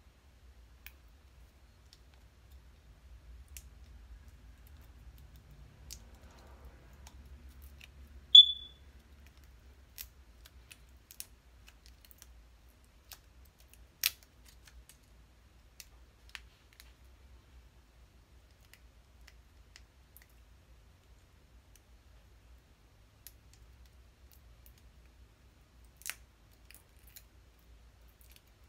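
Sparse small clicks and taps from hands handling a plastic eyeliner pen, with one short high squeak about eight seconds in.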